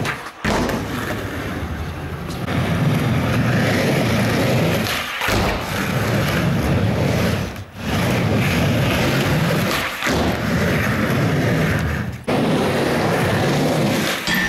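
Skateboard wheels rolling on an indoor skatepark's floor and ramps, a steady loud rumble that cuts off abruptly and starts again several times, about every two to five seconds.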